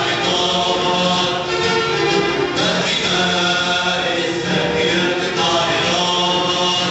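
Music with a group of voices singing together in chorus.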